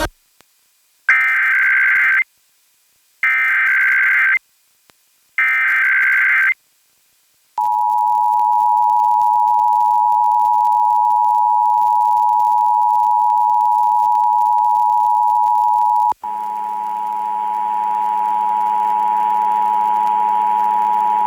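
Emergency Alert System test over FM radio: three one-second bursts of the SAME digital header, a warbling data screech, then the two-tone attention signal (853 and 960 Hz played together) held steady for about fourteen seconds. About two-thirds of the way through, a low hum and hiss join the steady tone. This is the opening of a Required Monthly Test, ahead of the spoken test message.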